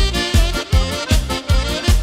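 Polka played by a small band: accordion leading over keyboard backing, with a steady oom-pah beat.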